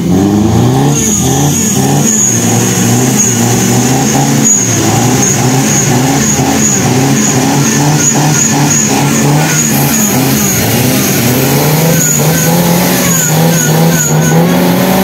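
Off-road 4x4's engine revving again and again, its pitch rising and falling, as it works to pull the truck through deep mud. A thin high-pitched whine runs above it.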